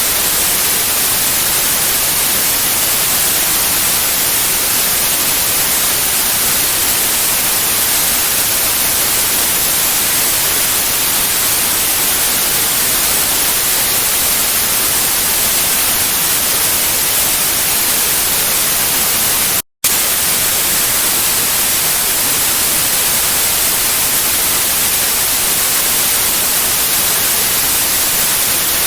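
Steady white noise: an even, unchanging hiss, brightest in the high end, that cuts out completely for a split second about two-thirds of the way through before resuming unchanged.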